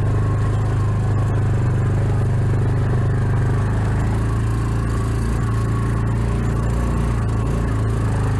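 Off-road vehicle's engine running at a steady low drone, with no revving, as it crawls along a rocky dirt trail.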